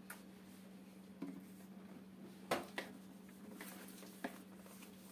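Hands handling a cardboard product box, with a few short taps and knocks, the loudest about two and a half seconds in. A steady low hum runs underneath.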